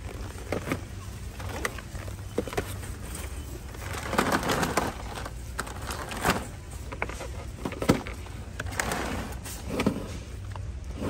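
Busy warehouse-store ambience: a steady low hum under scattered knocks and clatter, with indistinct shopper voices rising around the middle and again near the end.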